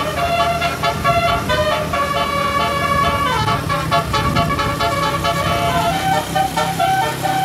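A tour bus's multi-tone 'telolet' horn plays a long melody of quickly changing notes. There are a few longer held notes and a falling slide about three seconds in, over a steady low hum.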